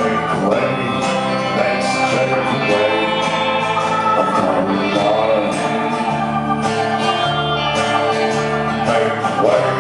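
Live band music: guitar and other instruments playing the song, with voices singing.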